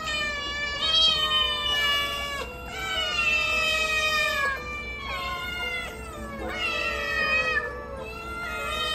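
Several young cats meowing loudly and insistently, a steady string of long, drawn-out, overlapping meows: begging for a snack.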